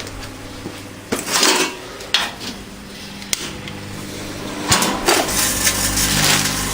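Clicks, knocks and short clattering rushes of things being handled around a microwave oven, several separate sharp clicks with a couple of brief scraping bursts between them.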